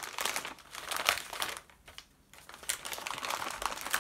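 Model rocket kit packaging crinkling and rustling as the parts are handled, in irregular bursts with a short pause near the middle.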